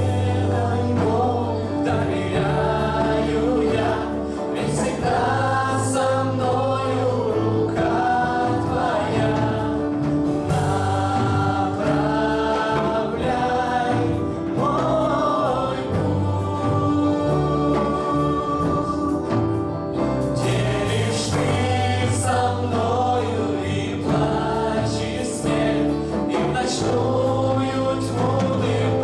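A live worship band playing a song: several men and women singing together, backed by acoustic and electric guitars, keyboard and drums.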